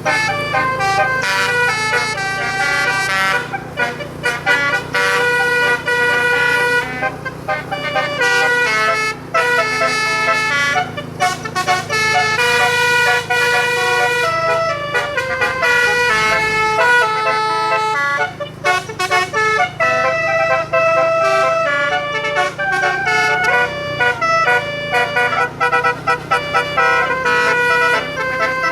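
Bus telolet horn, a bank of electric horn trumpets, playing a continuous tune of changing tones, over a steady low engine hum.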